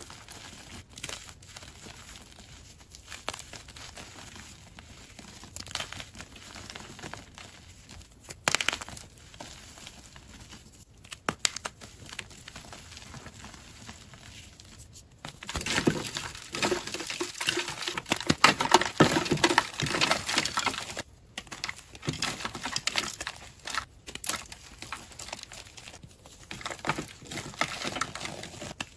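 A block of gym chalk crushed and crumbled in a hand: crackling, crunching and the patter of falling chalk, with a few sharp snaps. About halfway through comes a louder, denser stretch of crunching lasting several seconds.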